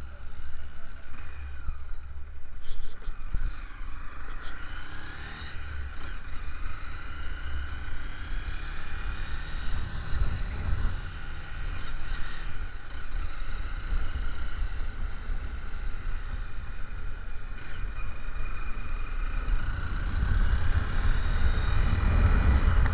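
A motor vehicle on the move: a steady engine and road rumble with a faint whine whose pitch slowly rises and falls.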